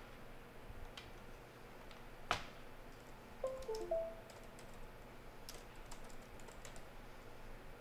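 Light typing on a laptop keyboard: scattered soft key clicks, with one sharper click a little over two seconds in. A brief few-note electronic chime sounds about three and a half seconds in.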